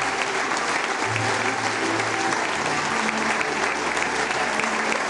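Audience applauding steadily at a concert curtain call, with music playing underneath in held low notes.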